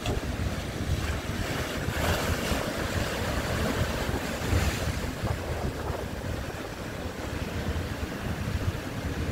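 Sea waves surging and breaking, over heavy wind rumble on the microphone. The surf hiss is loudest from about two to five seconds in.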